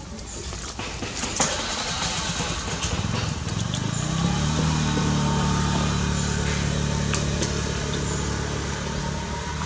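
A motor vehicle's engine running: it comes in a few seconds in, rises slightly in pitch, then holds steady. A single sharp click sounds before it, about a second and a half in.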